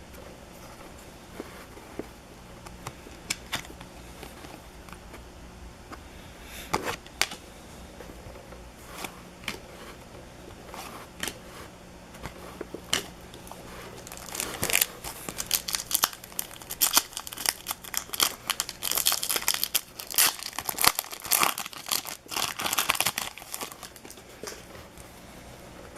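Trading-card pack wrappers being torn open and crinkled. Scattered light clicks and taps in the first half give way, about halfway through, to a long stretch of dense crinkling and tearing, over a faint steady hum.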